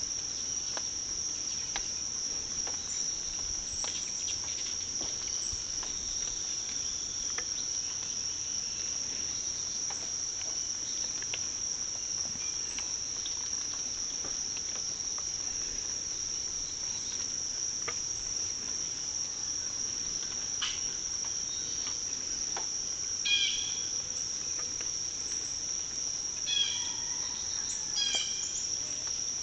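A continuous insect chorus: one high, steady drone with no break. Short runs of louder chirping notes cut in twice in the last third, over faint scattered ticks.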